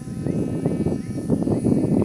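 Uneven rumbling noise from wind on the microphone, over a faint steady whine from the small brushless electric motor and propeller of an RC paraglider trike flying overhead.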